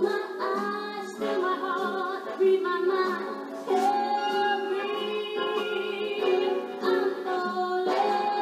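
A song playing: a sung melody with vibrato over instrumental accompaniment.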